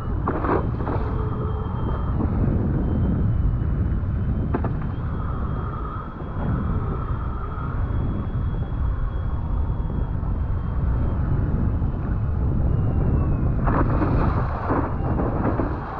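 Wind buffeting the microphone over open sea, a steady low rumble, with short rushes of splashing water about half a second in, once mid-way and again near the end.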